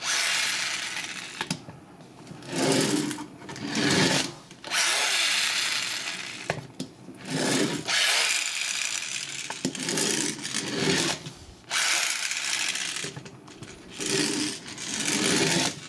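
Dino Sparkers Strafe toy pulled back and forth along a table, its spark mechanism grinding with a whir in about seven bursts of a second or two each.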